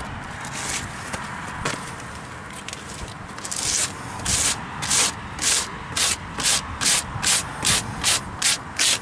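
A red abrasive scuff pad rubbed by hand over epoxy primer on the steel door pillar of a 1974 Ford F-350 cab, scratching up the primer so the body filler will grip by mechanical adhesion. It starts as soft, uneven rubbing, and from about four seconds in turns into quick, even back-and-forth strokes, about two to three a second.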